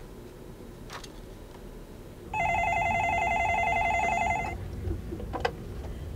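Office desk telephone ringing once, an electronic warbling ring of about two seconds, starting about two seconds in. A short click follows as the handset is lifted.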